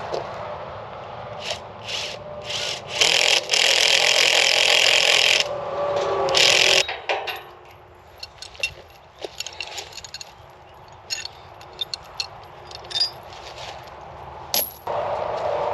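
Hand-tool work on a wooden gate post and its hardware: several scraping strokes, the longest lasting a couple of seconds, then a run of light clicks and taps.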